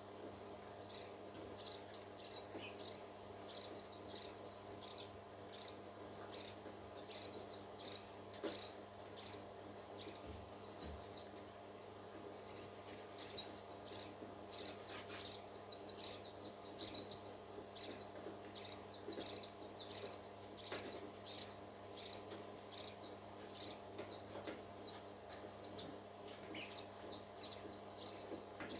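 Newly hatched parrot chick peeping: quick high chirps in short clusters, repeating over and over, over a steady low hum.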